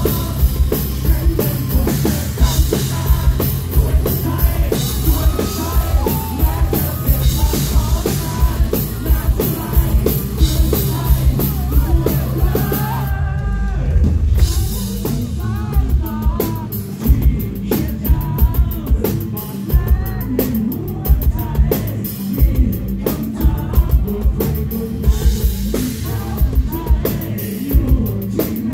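Live rock band playing: a male singer over distorted electric guitar, bass and a drum kit with a steady beat. The cymbals drop out briefly about halfway through.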